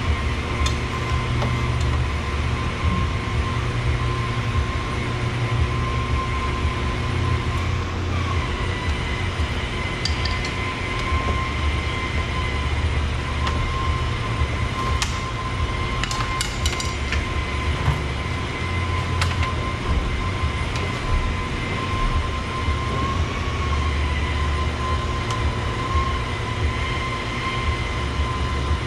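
Steady low mechanical drone with a steady high whine over it, and a few short sharp clicks about a third and half to two-thirds of the way in, as plastic trim clips are worked loose from the door.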